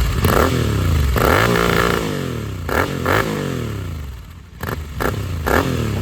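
Royal Enfield Continental GT 650's 648 cc parallel-twin, breathing through a Red Rooster aftermarket exhaust with its dB killer fitted, revved in several blips, the revs rising and falling back each time. Sharp pops come from the exhaust as the revs drop.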